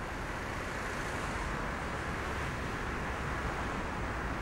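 Steady outdoor background noise: an even hiss with a low rumble underneath, holding level without change.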